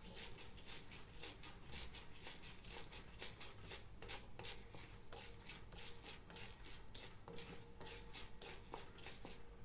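Dry split chickpeas (chana dal) rattling and scraping against a black iron kadhai as they are stirred with a spatula while being dry-roasted, a quick irregular patter of little clicks. A steady high hiss runs underneath and stops just before the end.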